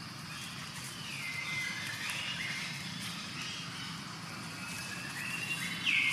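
Long-tailed macaque giving a string of high-pitched calls, each sliding down and then holding its pitch, the loudest near the end, over a steady low rumble.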